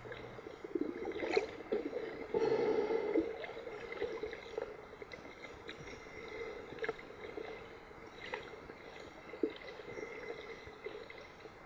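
Underwater sound through a compact camera's waterproof housing: muffled water sloshing and gurgling, with a few faint clicks and a louder stretch about two and a half seconds in.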